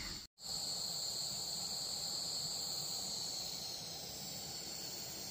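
A steady, high-pitched chorus of insects such as crickets, continuous and even, dropping out for a moment just after the start.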